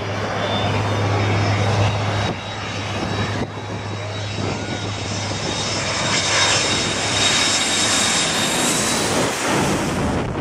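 Turbofan engines of a jet airliner on approach to land, passing low overhead: a steady high whine over broad rushing noise. The whine and hiss grow brighter as the jet comes overhead, about two-thirds of the way through.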